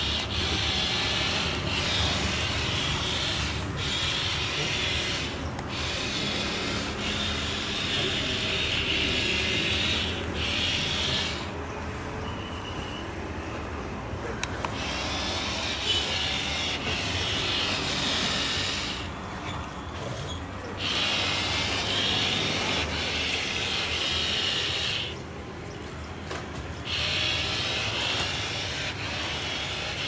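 A toy remote-control excavator's small electric motors and plastic gearboxes whirring as it drives on its tracks and works its arm. The whir runs in long stretches and stops three times for two or three seconds.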